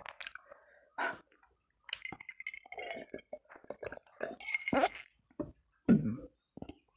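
Close-miked mukbang eating sounds: wet chewing and mouth smacks while eating rice and chicken by hand. Around the middle come gulps of iced water from a glass jar, with ice clinking against the glass.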